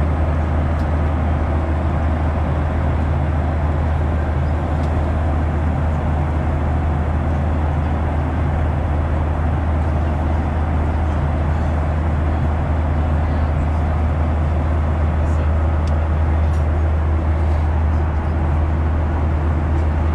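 Steady cabin noise of an airliner in flight: a constant low drone of the jet engines and airflow with an even rushing hiss over it, unchanging throughout, with a few faint ticks in the second half.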